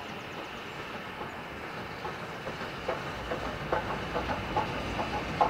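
Steam-hauled train approaching over a cast-iron arch bridge: a rumble that grows from about two seconds in, then sharp, irregular clacks of the wheels over the rail joints.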